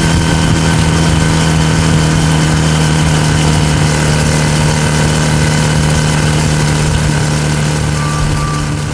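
A motor running steadily at constant speed: a loud, unchanging low hum with a wide hiss over it.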